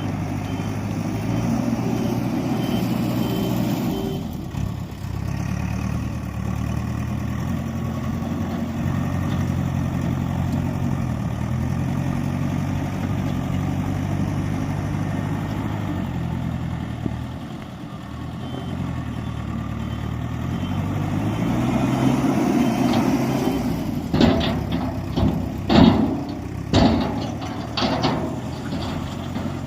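Heavy diesel engine of earthmoving machinery running, its revs rising and falling repeatedly. Several sharp clanks and knocks come close together about three-quarters of the way in.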